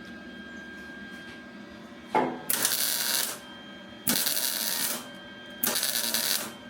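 Three bursts of rapid ratcheting clicks, each a little under a second long and about one and a half seconds apart, starting about two seconds in, over a faint steady hum.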